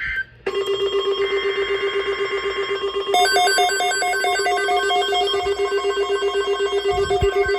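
Weather alert radio receivers sounding electronic alarm tones for a tornado watch. A steady tone starts about half a second in, and a faster pulsing beep joins about three seconds in.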